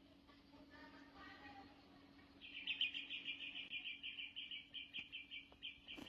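An animal call: a rapid run of high chirps, about six a second, starting a couple of seconds in, after a fainter call, over a steady low hum.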